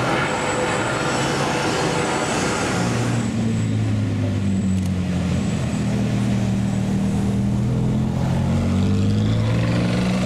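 Ferrari 458 Speciale Aperta's naturally aspirated V8 running at low revs as the car drives slowly past. A broad rushing noise fills the first three seconds, then a steady low engine note takes over.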